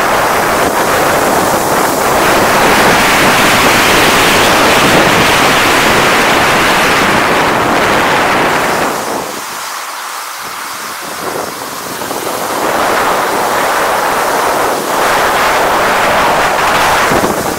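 Loud wind rushing over the microphone of a snowkiter's point-of-view camera while riding. It eases for a few seconds about halfway through, then builds again.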